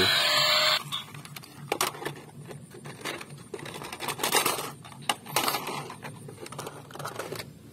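A battery toy car's electronic sound effect plays and cuts off under a second in, followed by scattered clicks and clatter of plastic and die-cast toy cars knocking together as they are handled in a plastic basket.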